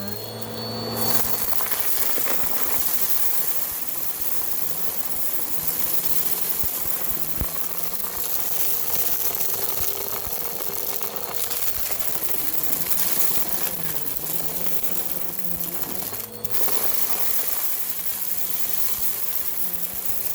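Bissell vacuum cleaner with its brushroll running close to the microphone: a steady, loud rush of air and motor noise, the motor's pitch rising and falling slightly. The sound dips briefly about sixteen seconds in.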